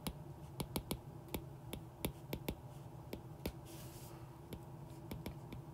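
Stylus tip tapping and ticking on a tablet's glass screen while equations are handwritten: quiet, irregular clicks, about three or four a second, with a brief soft scratch of a stroke about four seconds in.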